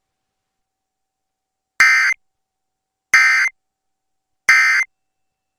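Emergency Alert System end-of-message (EOM) data tones: three short, identical bursts of digital data a little over a second apart, marking the end of the alert.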